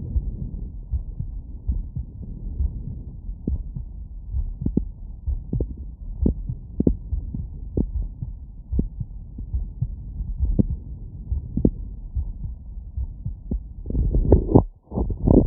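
Human heart sounds heard through a stethoscope, lying down after exertion: regular low beats about once a second over a dull background. Near the end a louder, rougher noise breaks in and briefly cuts out.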